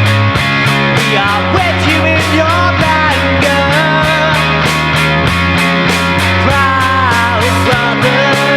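Rock band playing an instrumental passage: guitars over sustained bass notes and a steady drum beat, with a lead line that bends up and down in pitch.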